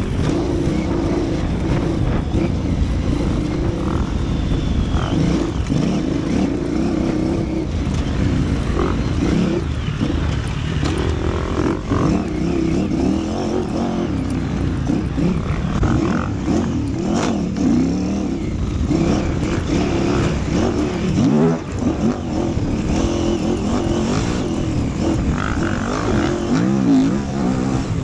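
KTM 950 Super Enduro's 942 cc V-twin heard from on board while riding off-road, its revs rising and falling over and over as the throttle opens and closes, with a brief drop just before the 22-second mark.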